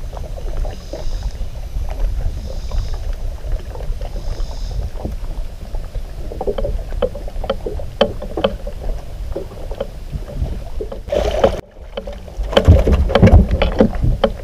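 Low rumble of wind and water around a bass boat, with scattered small clicks and knocks from the deck and fishing gear that grow louder and busier in the last couple of seconds.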